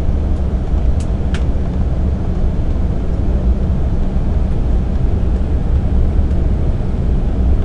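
Steady cabin noise of an Embraer E-190 airliner in flight on approach: the drone of its twin turbofan engines and rushing airflow, heavy in the deep rumble. Two faint short clicks about a second in.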